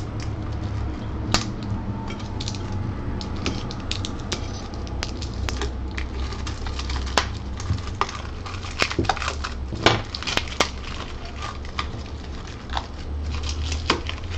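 3D printer packaging being handled and unpacked: irregular crackles, clicks and light knocks of foam, cardboard and parts being moved, over a steady low hum.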